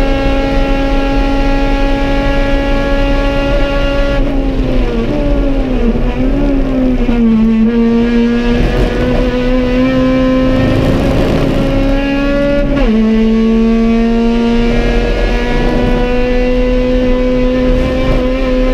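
Honda EG Civic race car's B18 four-cylinder engine running hard, heard inside the stripped-out cabin. It holds a high steady pitch, falls for a few seconds as the car slows for a corner, climbs again under acceleration, drops suddenly at an upshift about 13 seconds in, then climbs once more.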